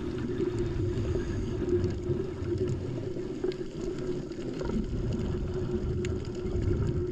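Muffled underwater ambience picked up through a dive camera's housing: a steady low hum and rumble with faint, scattered clicks.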